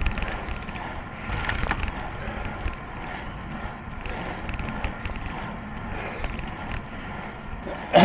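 Steady rolling and rattling noise, like a moving ride over a rough surface, with a single sharp knock at the very end.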